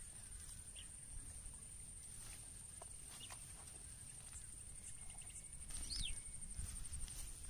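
Quiet outdoor ambience with a steady, high-pitched, evenly pulsing buzz typical of insects and a short falling bird chirp about six seconds in. Faint ticks and rustles come from a nylon mesh fish bag being tied shut with string.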